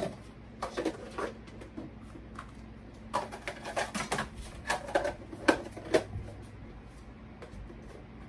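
Dishes and kitchenware clinking and clattering as they are washed and put away: a run of short, sharp knocks, thickest between about three and six seconds in.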